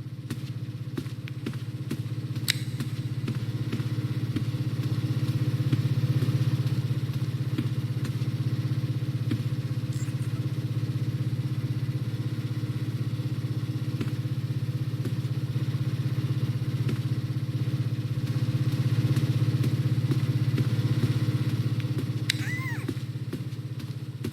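A machine running with a steady low hum that slowly grows louder and eases off twice.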